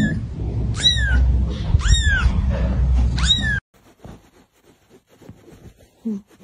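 Tiny kitten mewing: four short, high-pitched cries, each falling in pitch, over a steady low rumble. The sound cuts off abruptly after about three and a half seconds.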